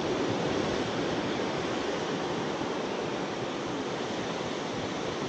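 Steady wash of sea surf, an even rushing noise mixed with some wind.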